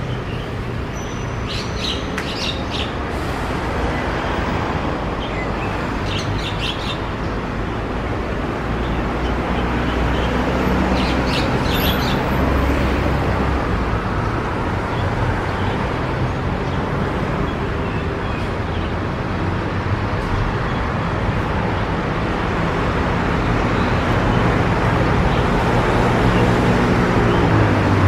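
Javan myna giving three short runs of high chirping calls in the first half, over a steady rumble of road traffic.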